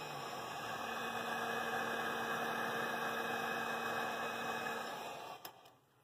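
Electric heat gun running: its fan blows with a steady hiss and hum, then it is switched off and winds down about five seconds in.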